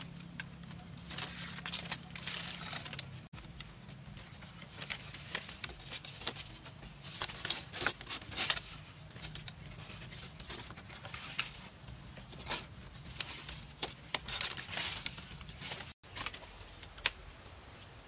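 Irregular clacks, taps and rustles of bamboo poles and slats being handled and lashed onto a bamboo frame, over a faint steady high tone.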